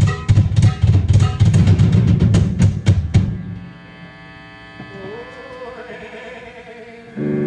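Rock band's drum kit, bass and electric guitars playing loosely, breaking off about three seconds in. Then a single held guitar note that slides up in pitch over a steady amplifier hum, with a short loud hit near the end.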